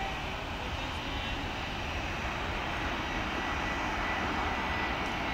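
Twin-engine jet airliner on final approach with landing gear down, its engines giving a steady noise with a thin high whine that grows slightly louder as the plane comes closer.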